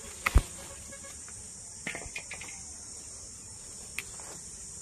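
Steady high-pitched chirring of insects, with a sharp knock about half a second in and a few softer clicks and leaf rustles near two and four seconds in from plants being handled.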